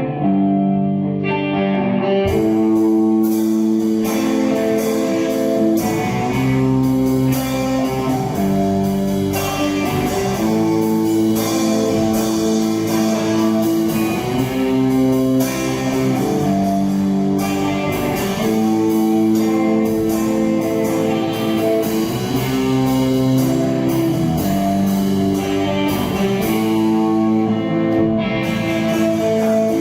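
A live band playing guitar-led rock music: repeating guitar chords, with percussive hits joining about two seconds in.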